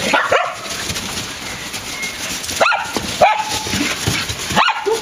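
A dog whining and yelping in excitement: four short, sharply rising cries, one of which levels off into a held whine.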